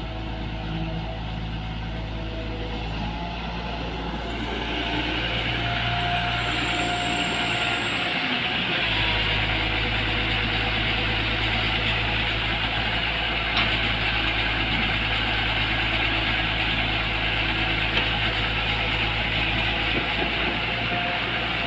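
L&T-Komatsu PC240 excavator's diesel engine running steadily as the machine raises its boom and swings, growing louder about four seconds in.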